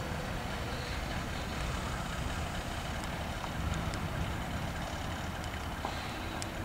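Steady low rumble of a standing freight train's diesel locomotives idling in the distance.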